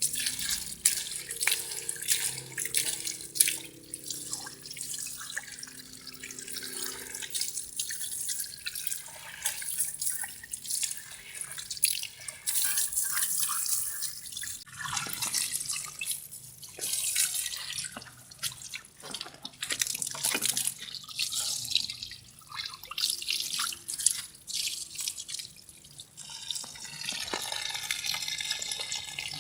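Water running and splashing onto a motorcycle engine block as it is rinsed during cleaning, with irregular splatters and drips throughout.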